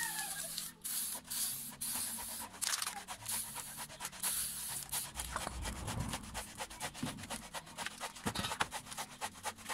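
Aerosol spray-paint can spraying in a rapid run of short hissing bursts.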